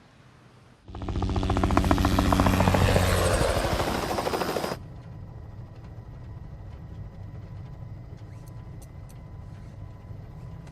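Helicopter flying, its rotor chopping rapidly and evenly over the engine, loud for about four seconds, then cutting off suddenly to a quieter steady low drone.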